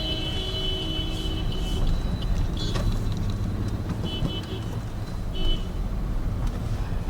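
Steady rumble of a car driving in city traffic, with vehicle horns honking: a long horn that stops about a second and a half in, then two short honks about four and five and a half seconds in.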